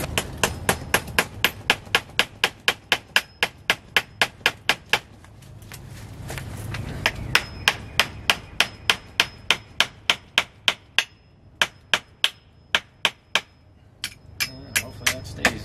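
Hammer driving nails into wood with quick, even blows, about four a second, in several runs with short pauses between. A thin, high ring carries through many of the strikes.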